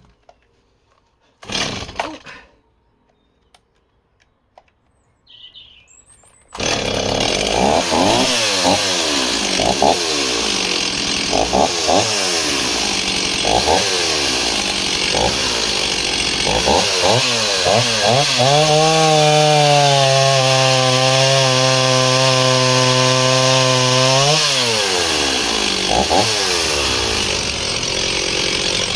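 Two-stroke chainsaw coming in abruptly about six seconds in, blipped up and down several times, then held at steady high revs for about five seconds before dropping back with a couple more blips. A brief knock is heard earlier.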